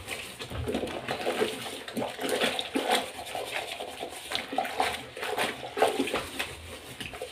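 Cooking pots (sufurias) being hand-washed in a sink: water sloshes and splashes, and the pots knock and scrape irregularly as they are scrubbed.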